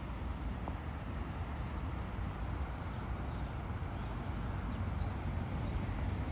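Steady outdoor ambience: a fluttering low rumble with hiss over it, and a few faint high chirps in the middle.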